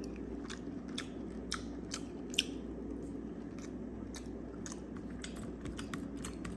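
A person chewing a mouthful of microwaved garlic herb steak, with soft, irregular mouth clicks over a steady low hum.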